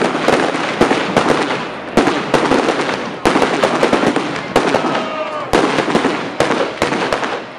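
Fireworks display going off: a rapid series of sharp bangs from bursting shells, sometimes two or three a second, with dense crackling filling the gaps between them.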